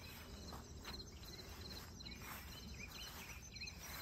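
Insects chirping in a garden: a string of short, rapidly pulsed chirps, repeating about every half second, over a faint steady outdoor background.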